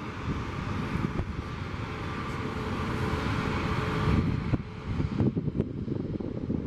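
Distant jet airliner engines running, with wind buffeting the microphone. The engine hiss builds and then drops away suddenly about four and a half seconds in.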